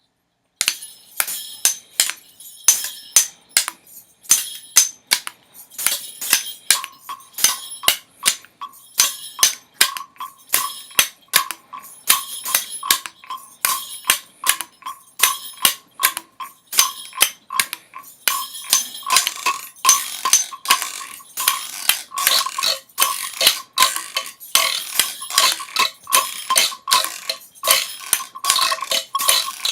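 Rapid, irregular clicks and knocks, about three a second, with a steady ringing tone joining in about seven seconds in.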